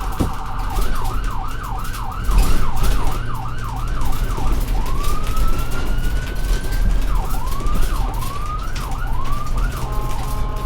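Ambulance siren cycling through its tones: a fast up-and-down yelp, then about five seconds in a long rising wail held high, then the yelp again, settling near the end into a steady tone. A constant low rumble of the vehicle driving lies underneath.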